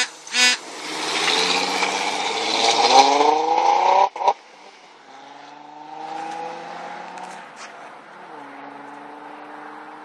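The 3.5-litre V6 exhaust of a 2002 Chrysler 300M Special taking off hard. The engine note climbs for about three seconds, drops sharply at an upshift about four seconds in, then climbs again more faintly as the car pulls away. It settles to a steady lower note near the end. Two short, sharp bursts come right at the start.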